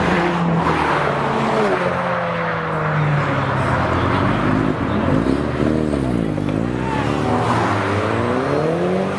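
A car engine running steadily, then its revs dip and climb back up in the second half.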